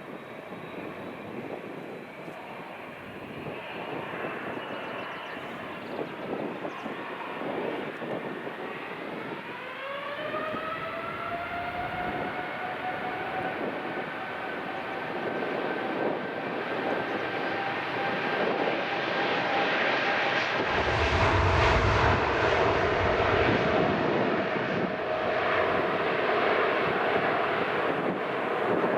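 Boeing 787-9 Dreamliner's twin turbofan engines spooling up for takeoff: a whine rises in pitch about nine seconds in and then holds steady as the engine noise grows louder, with a deep low rumble about twenty seconds in.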